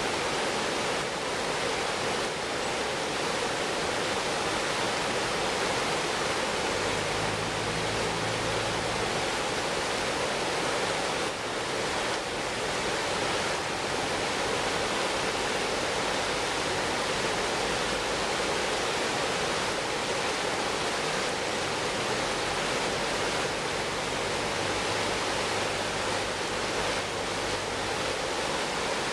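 Steady rush of river water pouring over broad rapids.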